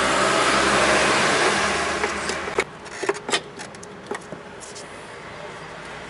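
A steady rushing noise that cuts off abruptly about two and a half seconds in, followed by a handful of sharp plastic clicks and knocks as a new brake booster vacuum hose and its connector are worked into place.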